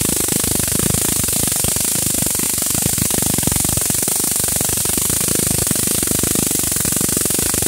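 High-voltage electric arc drawn from a homemade capacitor-and-diode voltage multiplier to a wire lead, crackling and buzzing continuously with a steady high hiss.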